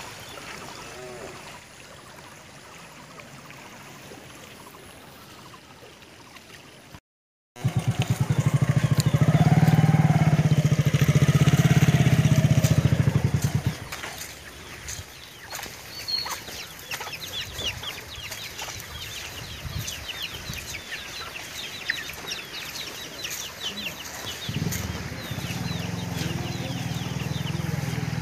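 Rural outdoor sounds with chickens, broken by a motorcycle engine running loudly and steadily for about six seconds in the middle and again near the end. Faint high chirps come between.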